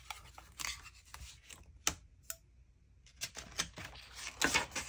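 Metal palette knife scraping along the glued edge of a block of cotton hot-press watercolour paper, prying the top sheet free. It is irregular scraping and rustling with a few sharp clicks early on, thickening into denser scraping near the end.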